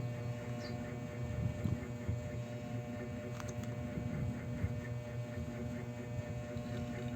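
Steady low electrical hum with several steady tones, and a single faint click about three and a half seconds in.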